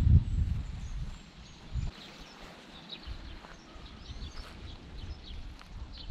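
Wind buffeting the microphone in low rumbling gusts, strongest at the very start, while small birds chirp faintly in short high calls throughout.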